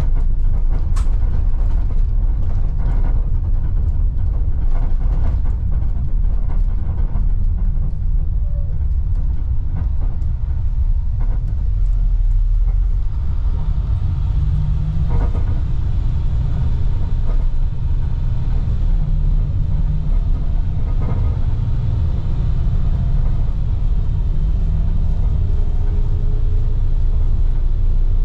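Ride noise inside a moving 2010 IC FE300 school bus with a MaxxForce DT diesel: a steady, loud, low engine and road rumble, with short knocks and rattles from the body and seats now and then.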